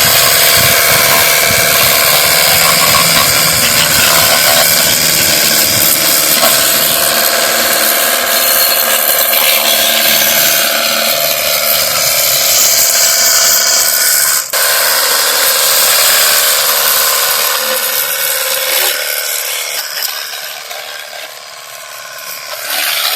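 Cordless battery-powered pressure washer gun running, its water jet spraying onto a dirty motorbike with a steady hiss and motor whine. It cuts out very briefly about two-thirds of the way through and grows quieter over the last few seconds.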